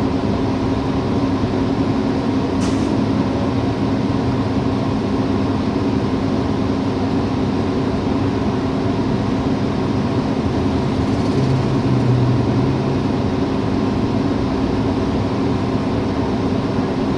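Steady engine and road drone heard from inside a city bus under way, with one short click about three seconds in.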